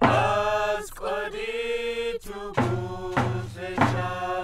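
Background music of chanted singing, the voice holding long notes.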